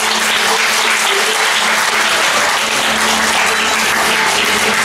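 An audience clapping, loud and steady, with the performance music continuing faintly underneath.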